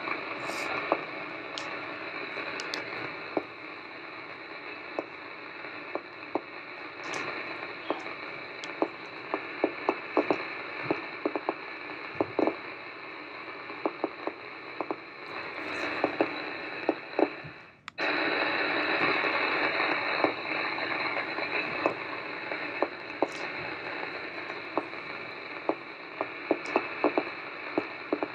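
Irregular light taps, thuds and scuffs of bare feet and hands on a dance-studio floor, over a steady hiss of room noise. The hiss cuts out for an instant about eighteen seconds in.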